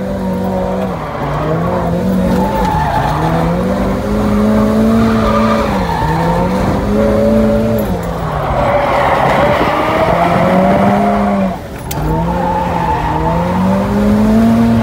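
Drift car engine held at high revs, rising and falling several times through a run as the tyres skid. The revs and loudness drop sharply once, about twelve seconds in, then build again.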